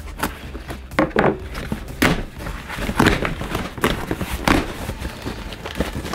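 Packing tape and a strip of corrugated cardboard being torn and peeled off a shipping box by hand, in several short tearing pulls with hands bumping and rubbing on the box.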